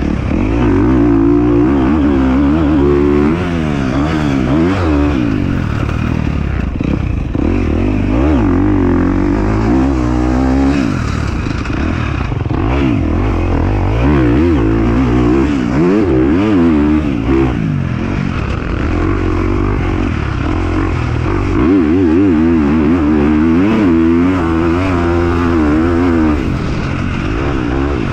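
Dirt bike engine revving up and down again and again as it is ridden, its pitch rising and falling with throttle and gear changes.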